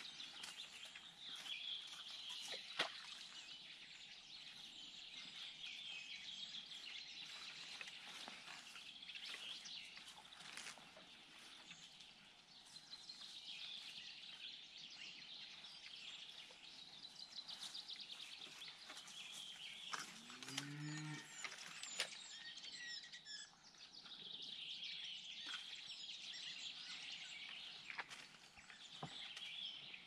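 Spring songbird chorus, many small birds twittering and chirping without pause. About twenty seconds in, a Highland cow gives one short, low moo that rises slightly, and a few sharp clicks sound here and there.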